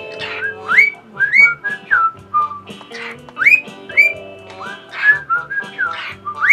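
Cockatiel whistling a string of short notes, most sliding sharply upward, about ten in a row.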